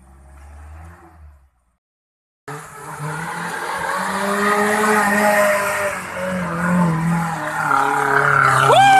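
1988 Suzuki Jimny 4x4 engine working hard under load on a muddy hill climb, coming in suddenly about two and a half seconds in after a faint rumble and a brief gap, its pitch rising and falling a little. Near the end, a short rising-and-falling cry.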